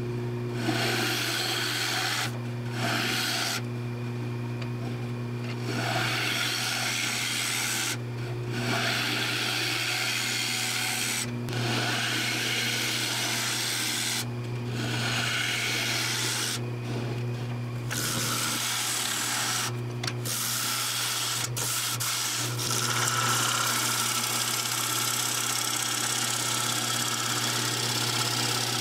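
A gouge hollowing the inside of a spinning wooden bowl on a Jet lathe: a scraping hiss of wood being cut, in passes broken by short pauses as the tool comes off the wood, then unbroken for the last several seconds. The lathe's motor hums steadily under it.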